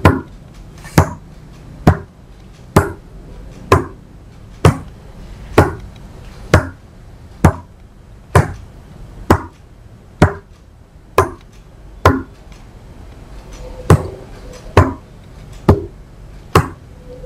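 A fingertip tapping on playing cards laid on a wooden table, one sharp tap about every second, each tap counting one step of the trick. The taps skip a beat about three-quarters of the way through.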